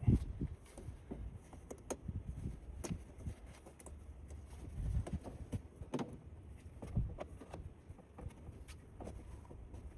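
Irregular clicks, clunks and rustling of hands working in the engine bay on the air intake, with no engine running or cranking.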